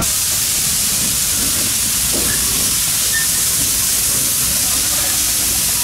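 1922 Vulcan 2-4-0 tank locomotive hissing steam loudly and steadily as it pulls the train, over the low rumble of the coaches rolling on the narrow-gauge track.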